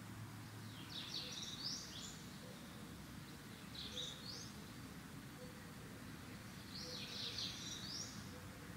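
A small songbird singing three short bursts of high, quickly gliding chirps, about three seconds apart, over a low steady background hum.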